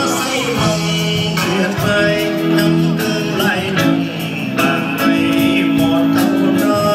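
Amplified music with a singer and a steady beat, played over an outdoor stage's sound system.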